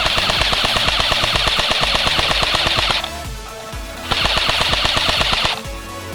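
Airsoft electric rifle firing on full auto: two long bursts of rapid, even clicks, the first about three seconds and the second about a second and a half.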